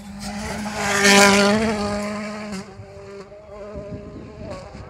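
Rally car passing close at speed, its engine note loudest about a second in and then fading away. A fainter, steady engine buzz from another rally car further off follows.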